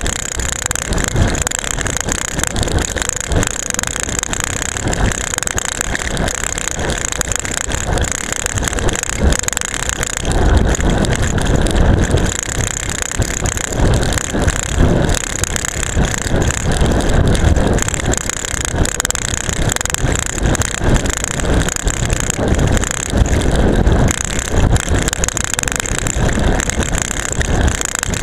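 Seatpost-strapped camera rattling hard in its mount on a road bike descending fast, a dense irregular clatter over a steady rushing noise.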